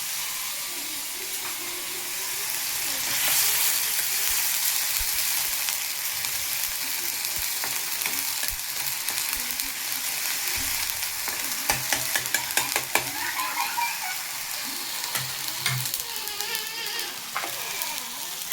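Onion and ginger paste sizzling in hot oil in a pan, the steady frying hiss of the masala base for palak paneer. A spatula stirs it, clicking and scraping against the pan in a quick cluster a little past the middle.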